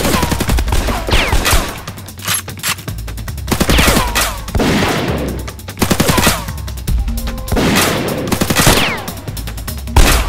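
Edited-in gunfire sound effects: rapid bursts of machine-gun-style shots with several falling ricochet whines, over background music.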